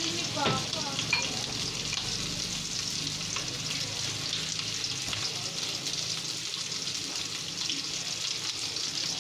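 Dried fish (daing) frying in hot oil in a wok, with a steady sizzle and scattered crackling pops. There are a couple of sharper knocks in the first second or so.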